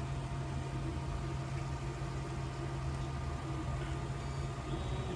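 Steady low machine hum with a few fainter steady tones above it, unchanging throughout.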